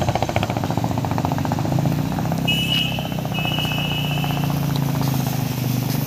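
High-pressure washer running with a fast rhythmic pulsing rumble as water is sprayed onto the tractor. A high steady tone sounds twice briefly near the middle.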